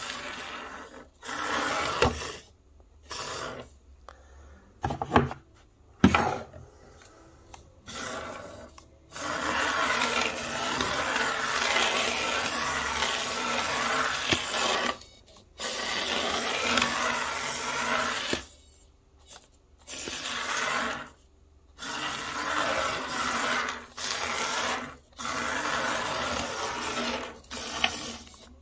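A 1:76 scale RC drift car being driven in short runs: a few sharp knocks at first, then repeated bursts of rasping, scrubbing noise from its tiny drivetrain and tyres, each a few seconds long, separated by brief pauses.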